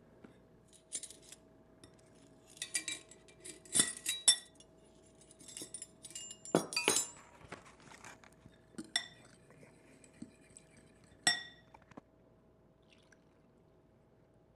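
Metal spoon clinking and scraping against a glass mixing bowl while stirring flour and dry ingredients, in irregular clusters of sharp clinks.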